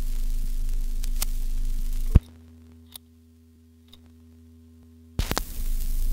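A phonograph record of a filmstrip soundtrack being turned over. Steady turntable hum and surface hiss cut off with a sharp click about two seconds in as the needle is lifted. After about three quiet seconds with faint ticks, a click and brief crackle mark the needle set down on the other side, and the hum and hiss return.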